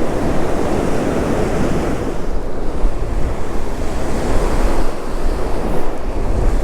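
Steady loud rush of water pouring through a power-plant spillway, with wind buffeting the microphone.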